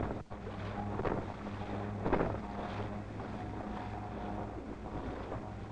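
Small boat's outboard motor running at a steady drone, with wind on the microphone and water splashing now and then.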